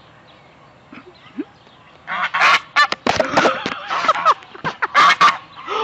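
Geese honking loudly in a rapid series of harsh calls, beginning about two seconds in.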